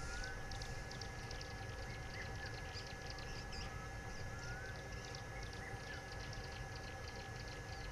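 Outdoor bush ambience: birds giving short rising whistled notes about once a second, over many faint high chirps and a steady thin high tone, with a low rumble underneath.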